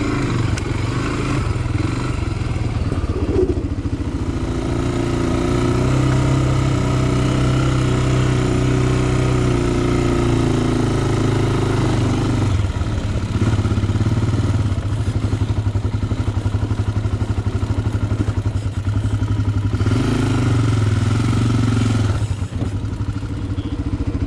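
Honda sport ATV's single-cylinder four-stroke engine running at low speed as the quad crawls over roots, the engine note rising and falling as the throttle is opened and eased several times, with a brief drop just before the end.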